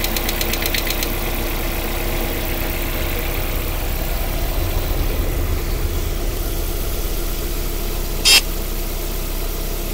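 Lada Priora engine idling, with a rapid even tapping that stops about a second in, leaving a steady idle: the knock that shows up after long standing, which the owner puts down to the hydraulic lifters or the piston group. A single short loud click near the end.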